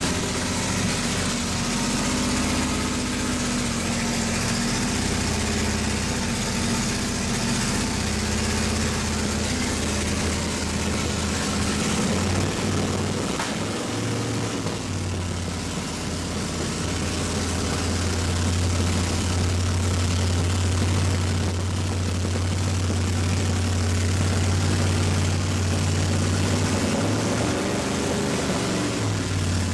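Holden Monaro race car's V8 engine idling, its low steady note shifting a little in pitch now and then, with a short blip of revs near the end.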